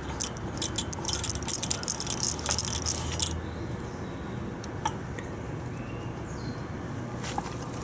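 Small metal engine parts clinking and jangling against each other as they are handled, densely for about two seconds, then a couple of single clicks.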